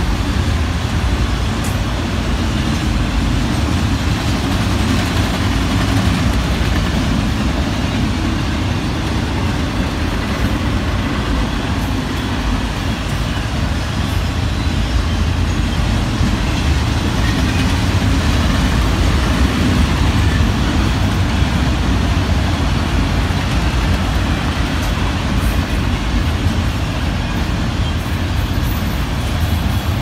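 A freight train of autorack cars rolling past at speed: a loud, steady rumble of steel wheels on the rails and the car bodies, with a few faint clicks.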